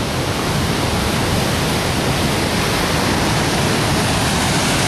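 Steady, loud rush of fast-flowing floodwater after heavy rain, an even hiss with no breaks.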